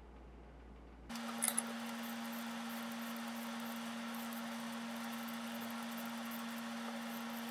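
A steady low electrical hum over a hiss of room noise. It starts abruptly about a second in, replacing a quieter low rumble, and two short clicks come just after it starts.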